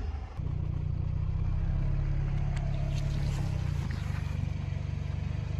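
Car engine running steadily with a low rumble, with a few faint clicks over it.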